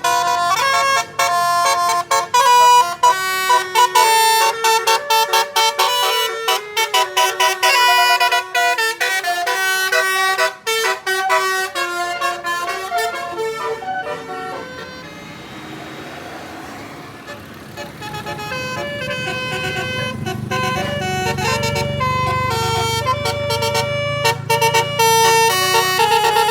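Indonesian bus 'telolet' horn: multi-tone air horns playing a quick tune of stepped notes. It pauses about halfway through, then resumes over a low engine rumble as the bus pulls away.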